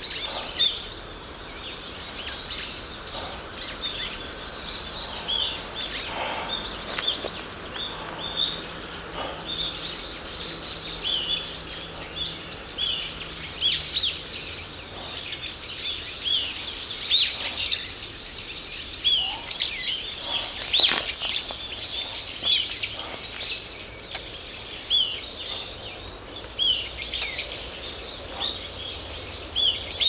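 Several brown-eared bulbuls giving alarm calls: a busy, overlapping run of short, high, shrill notes, busiest and loudest in the second half.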